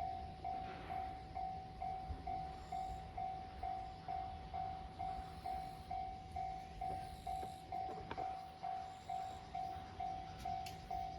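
Japanese railway level-crossing warning bell ringing, a repeated electronic 'kan-kan' tone a little over twice a second, each strike sharp and fading: the signal that a train is approaching the crossing.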